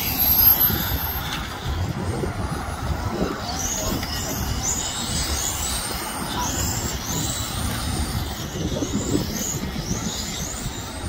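Xray radio-controlled touring cars running on an asphalt track, their motors whining high and rising and falling as they speed up and slow through the corners, under a rough low rumble.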